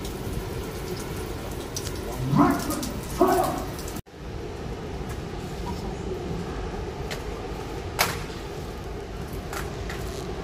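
Steady hiss of rain falling on a ship's open deck. A voice cuts in loudly twice, briefly, a few seconds in, and there is a single sharp click about eight seconds in.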